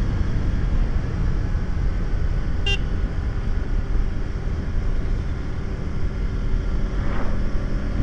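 Steady road and wind noise from a moving motorcycle on the road, with a short vehicle horn toot almost three seconds in.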